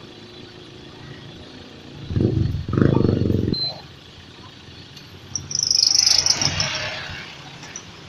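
Garbage compactor truck working on a street: a low engine surge from about two to three and a half seconds in, then a harsh, high-pitched screech around six seconds.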